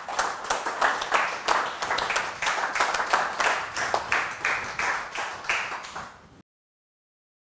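A small audience applauding, the claps thinning out and then cut off abruptly to silence about six seconds in.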